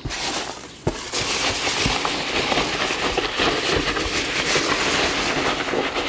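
Hand digging through polystyrene packing peanuts in a cardboard box: a continuous dense rustle of the foam pieces rubbing together, quieter at first and starting in earnest just under a second in.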